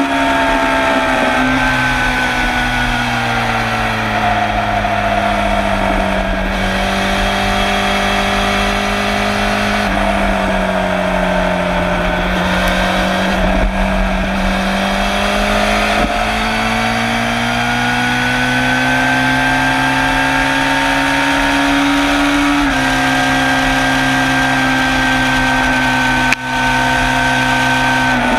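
Suzuki GSX-R750 SRAD's inline-four racing engine pulling hard, heard close to its exhaust silencer with wind rush over it. The engine note falls for the first few seconds, holds, then climbs steadily, with a brief step down in pitch about two-thirds of the way through, as from a gear change.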